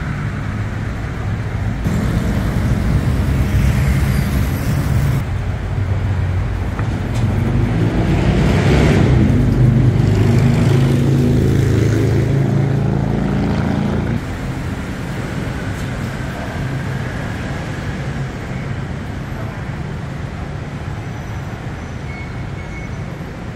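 Road traffic on a busy city street, with car and motorbike engines running. One vehicle's engine swells close by, loudest about halfway through, then drops back about two-thirds of the way in to a steadier, lower traffic hum.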